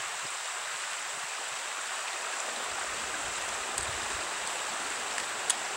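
Creek water running steadily, an even rushing sound. A brief low rumble comes a little past the middle, and a single sharp click near the end.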